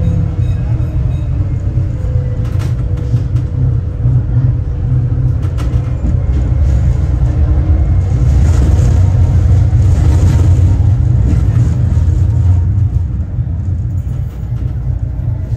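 Tram running along its tracks: a steady low rumble that grows louder about eight seconds in and eases off near the end, with a couple of sharp clicks early on the run.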